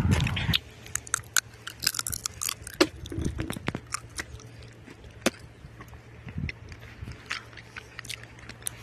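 Background music cuts off about half a second in, followed by faint, irregular crunching and clicking over a low steady hum.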